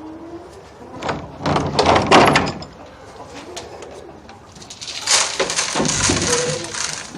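Animal feed being poured into buckets in two long, rattling pours, with chickens calling softly.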